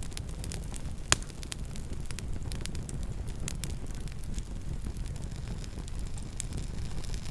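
Campfire crackling: a steady low rumble of burning with frequent small pops and snaps, and one louder pop about a second in.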